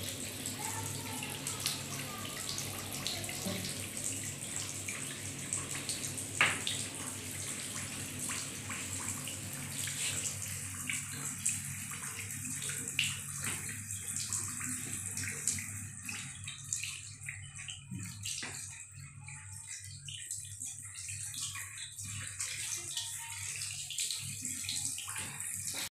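Water running from a bathroom sink tap onto hands and into a ceramic basin, splashing as the hands are rubbed together under the stream during handwashing. The splashing thins about ten seconds in.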